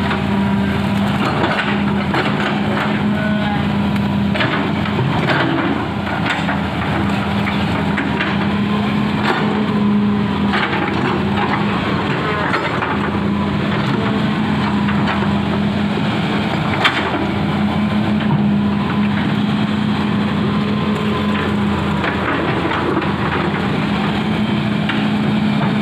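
Hitachi hydraulic excavator's diesel engine running steadily under work, with a thin steady whine and scattered knocks and cracks as it digs and moves earth; the sharpest knock comes about two thirds of the way through.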